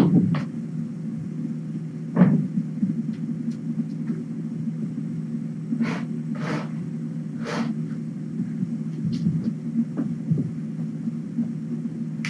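Steady low hum, with a few sharp knocks and clicks scattered through it.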